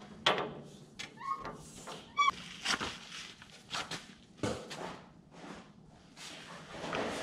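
Scattered metallic clicks and knocks from a socket and long breaker bar being fitted and heaved on to break loose a tight bolt under a hay mower's deck, with a few brief high squeaks about a second and two seconds in.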